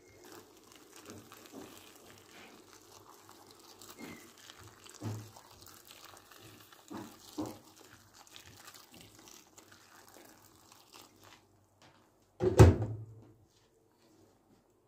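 Kitchen handling sounds: faint rustling with a few light knocks, then one loud, short thump about three-quarters of the way through.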